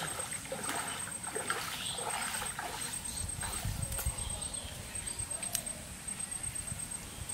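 Bare feet wading through a shallow stream, water splashing and sloshing irregularly with each step.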